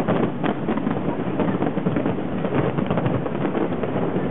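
Fireworks going off in quick succession: a dense run of bangs and crackles over a continuous wash of crowd noise and wind on the microphone.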